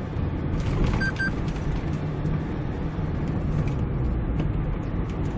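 Steady engine and road noise inside the cab of a Kia Bongo III truck being driven along, with two short beeps about a second in.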